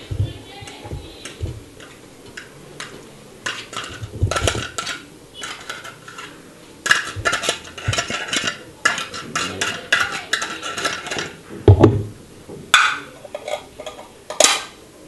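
Metal spoon scraping canned sardines out of an opened tin into a plastic bowl, metal scraping and clicking against the tin, with a few sharp knocks near the end.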